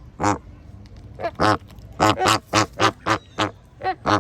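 Flamingos honking: about ten short, goose-like calls in quick succession, some overlapping.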